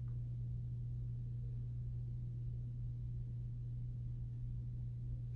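A steady low hum with nothing else heard: room tone.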